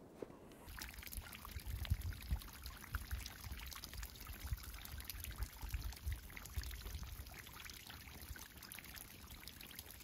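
Snowmelt dripping and trickling off a roof eave: a dense, irregular patter of small drips that starts about a second in, with an uneven low rumble underneath.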